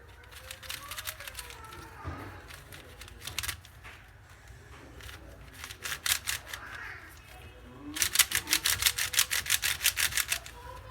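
Plastic puzzle cube being turned by hand: scattered clicking turns, then near the end a fast run of about eight clicks a second as the layers are spun quickly.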